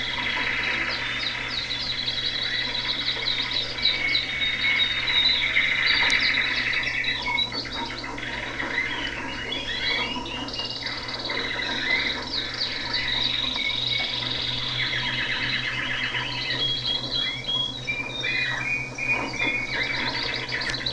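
Small cage birds in an aviary chirping and trilling, many calls overlapping in quick runs, over a steady low hum.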